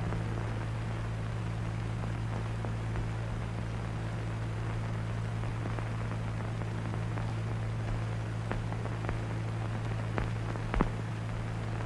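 Steady low hum and hiss of an old film soundtrack, with a few faint scattered clicks and one sharper click near the end.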